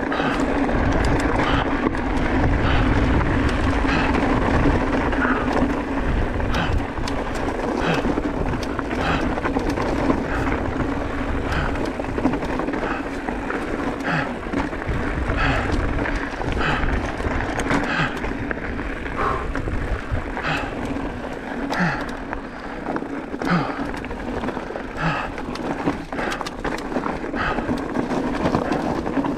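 Mountain bike rolling over a rough, rocky trail: tyres crunching on loose stones and the bike rattling with repeated short knocks, over a steady rumble of wind on the camera microphone.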